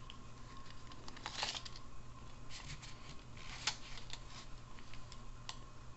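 Faint rustling and scattered small clicks of gloved hands handling a large knife and a tape measure on cloth, over a faint steady hum.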